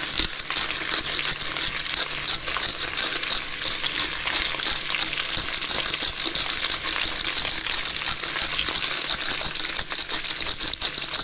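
Hungarian smoked bacon and cooked pasta frying together in a pan: a steady dense sizzle with many small crackles and pops.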